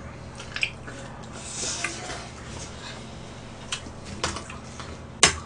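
Eating at a table: jajangmyeon noodles being slurped and chewed, with scattered clicks of chopsticks and a metal fork against plates and bowls. The sharpest click comes near the end.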